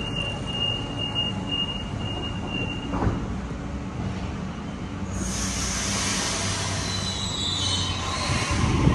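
Sydney Trains Waratah double-deck electric train pulling away from the platform: a low rumble with a steady high tone for the first three seconds, then a rising hiss and high whine as it gets under way from about five seconds in.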